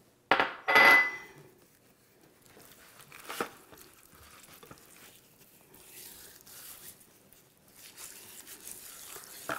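Hands rubbing seasoning into a raw leg of lamb in an aluminium roasting pan: faint, irregular rubbing and crinkling, with a brief louder scrape near the start and a single click a few seconds in.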